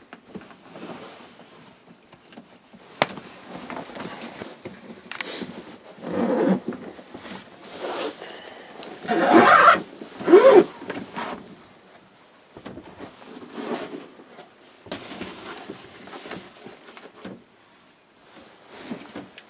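Clothing rustling and gear being handled inside a wooden hunting tower, with scattered knocks and a sharp click about three seconds in. The loudest sounds come about nine to eleven seconds in: a couple of short, rising, groan-like noises.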